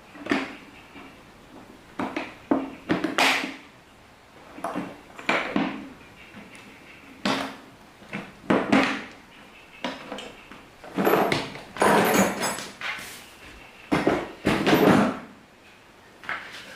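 Irregular knocks and clatter, a dozen or so sudden sounds spaced unevenly, some with a short ring.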